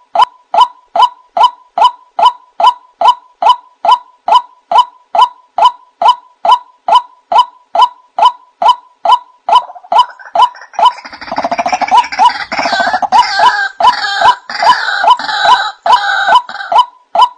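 White-breasted waterhen calling, a monotonous 'wak' note repeated evenly about two and a half times a second. From about ten seconds in until near the end, a harsher, chattering layer of overlapping calls joins over the repeated notes.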